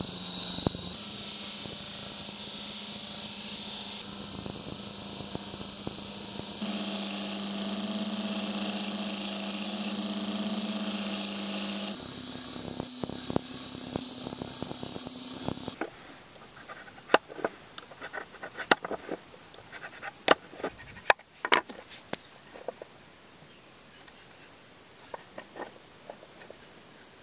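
Belt grinder running with a steady hiss and motor hum as the steel shuriken's edges are ground against the abrasive belt. About sixteen seconds in this stops abruptly, leaving quiet with scattered light clicks and taps from the steel piece and a marker being handled on a wooden board.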